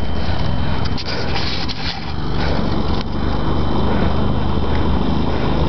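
The engine of an ARGO Avenger 8x8 amphibious ATV running steadily with a low drone, with a few short knocks in the first three seconds.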